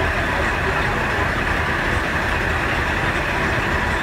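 Diesel railcar idling steadily while stopped at the platform.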